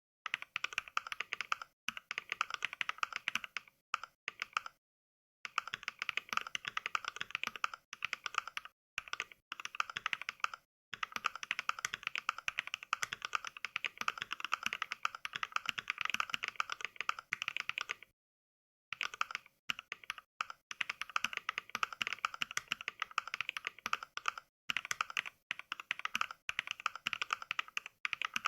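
Simulated mechanical-keyboard typing from the Mechvibes app's NK Cream switch sound pack, one click per keystroke: rapid, even touch-typing clatter. It stops dead in a few short pauses, the longest about two-thirds of the way through.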